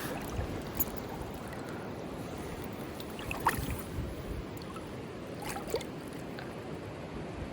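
River water running steadily, with a few light clicks about three and a half and five and a half seconds in.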